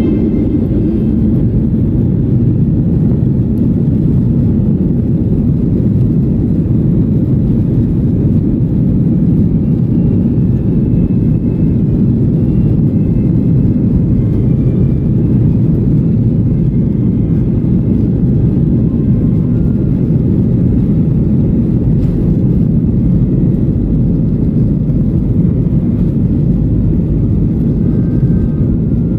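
Steady low cabin rumble of a Boeing 737-800 heard from a window seat over the wing: the CFM56 engines running as the airliner rolls along the ground.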